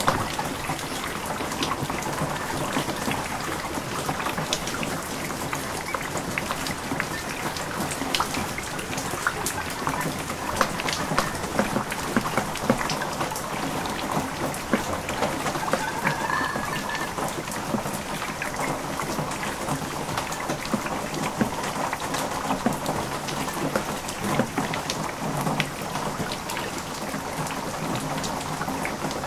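Heavy typhoon rain pouring onto a garden yard: a steady, dense hiss with many sharp drop taps on leaves, gravel, plastic basins and tins, and runoff flowing across the ground.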